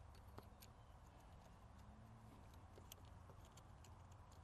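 Near silence, with faint scattered light clicks from a plastic garden-hose quick-connect fitting being handled and threaded onto the end of a hose.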